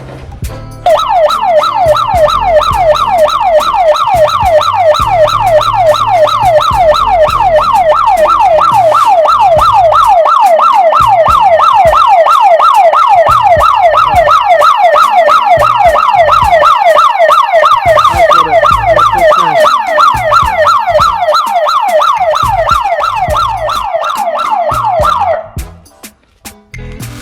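Electric fence alarm siren sounding during a test: a loud, fast-repeating electronic wail of about four sweeps a second, starting about a second in and cutting off near the end.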